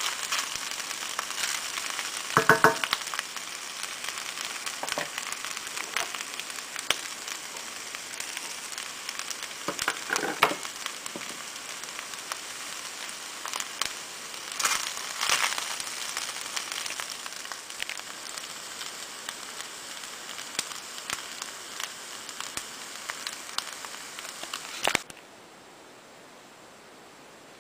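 Fried rice sizzling in a stainless steel pan while a wooden spoon stirs and scrapes through it, with scattered clicks and two louder knocks about 2.5 and 10 seconds in. The frying sound cuts off suddenly near the end, leaving a faint steady hiss.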